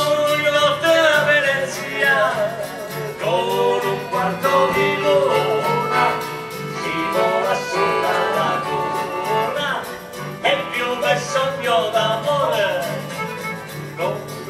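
Singing gondoliers performing a song live: voices singing with instrumental accompaniment.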